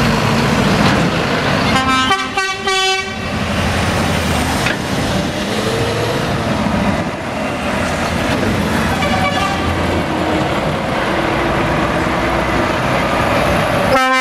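Heavy lorries' diesel engines running as they drive out past at close range, with a loud truck horn blast lasting about a second and a half about two seconds in, a shorter, fainter horn blast around nine seconds, and another right at the end.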